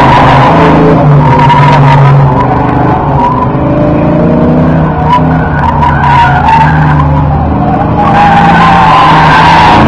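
Fox-body Ford Mustang driven hard through an autocross course, its engine pulling under load while the tires squeal through the turns. The squeal eases off for a few seconds in the middle and comes back strongly near the end.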